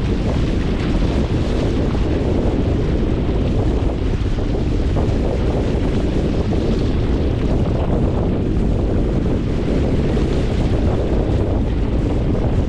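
Steady wind buffeting the microphone aboard a small sailing yacht under way, with the rush of sea water beneath it.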